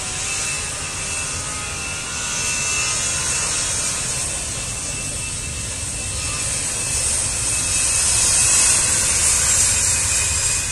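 Airbus A320 jet engines at takeoff power as the airliner accelerates down the runway: a steady jet rush with a high fan whine, growing louder and peaking near the end as the aircraft passes.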